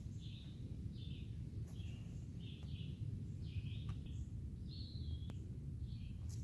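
A bird chirping in short high notes, about one or two a second, over a steady low rumble.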